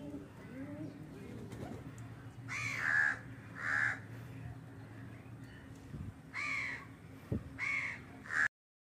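Crows cawing in short runs of two or three calls, with a pigeon cooing low and soft during the first second or so. The sound cuts off abruptly just before the end.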